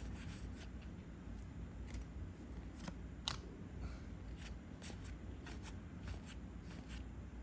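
Star Wars Unlimited trading cards being handled and flipped through: a scatter of faint, short clicks and soft slides.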